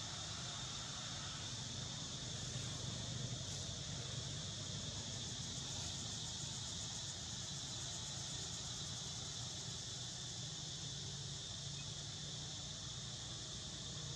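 Steady, high-pitched chorus of insects, with a low hum underneath.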